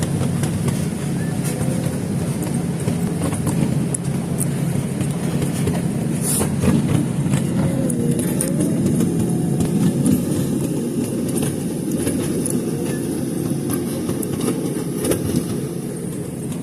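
Steady low rumble of a moving train heard from inside a passenger car, with scattered clicks and rattles.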